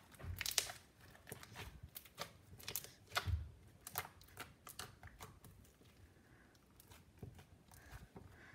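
Soft slime being squished, folded and pressed by hand against a countertop, giving off irregular crackling clicks and small pops as air pockets burst, with soft thuds where it is pressed down about half a second and about three seconds in.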